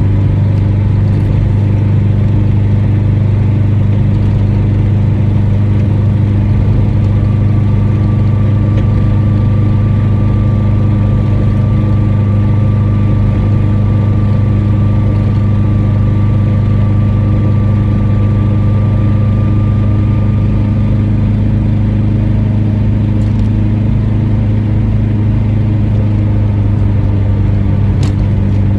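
Car being driven, heard from inside the cabin: a steady low drone of engine and road noise, with a faint high whine from about seven seconds in until about twenty-one seconds in. The drone is the noise the owner says the car has made since she got it.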